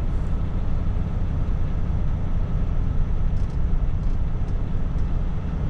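Steady low rumble of a semi-truck's diesel engine idling, heard from inside the cab while the truck stands still.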